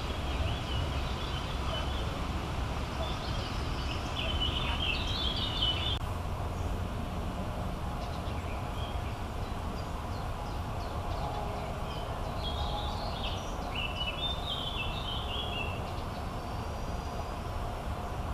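Birds chirping in two short spells, one in the first few seconds and one past the middle, over a steady low rumble.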